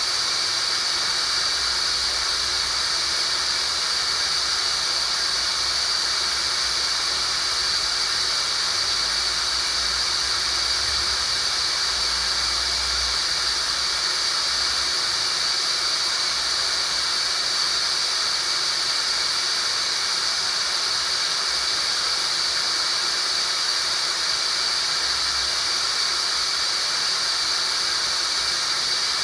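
Tinnitus relief therapy sound: a synthetic, unchanging hiss, strongest in a high band around 4–5 kHz.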